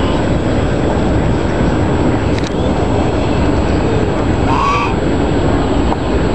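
Steady low rumbling noise throughout, with a goose giving one short honk about four and a half seconds in.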